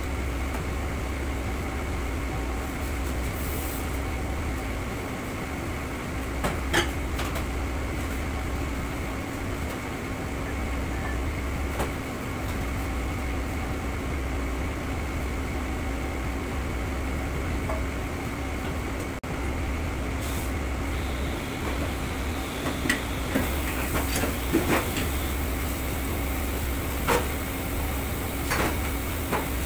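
Steady hum of a commercial kitchen's ventilation and equipment, with scattered clanks of metal pans and utensils that grow more frequent in the last third. About two-thirds of the way in, a tap starts running into a stainless-steel sink and adds a steady hiss.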